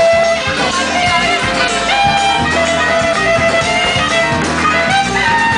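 Live band music: brass horns play a melody of held notes over dense batucada (samba) drumming.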